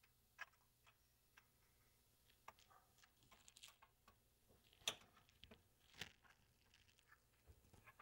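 Faint, scattered clicks and light taps of a small power switch and its wires being handled and pushed into place in a stereo receiver's metal chassis, the sharpest clicks about five and six seconds in.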